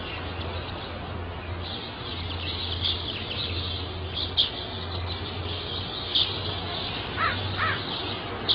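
Birds chirping in short, sharp calls, a few standing out louder, over a steady low hum and hiss. Two brief lower calls come near the end.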